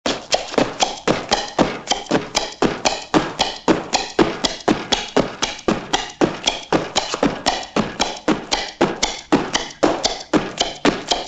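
A fast, regular series of sharp taps, about three to four a second.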